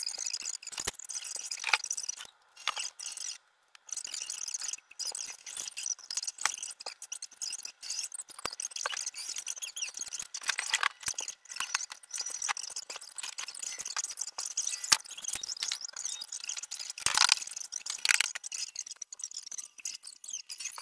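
Belongings being handled and carried out of a closet: rustling, light scrapes and small knocks and clatters, a few of them louder near the middle and near the end, over a steady faint hiss.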